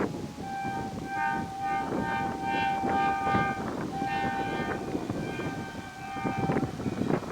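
Indian Railways train horn sounding a rapid string of short blasts, then longer ones, over the rumble of a passing train.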